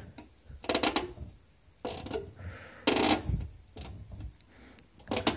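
Short plastic clicks and crackles, four brief bursts a second or so apart, from a Mercedes-Benz rear star emblem being pressed into its mounting holes in the trunk lid.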